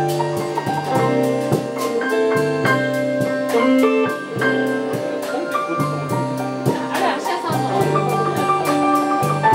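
Live band playing: electric guitars and bass over a drum kit keeping a steady beat, with keyboard.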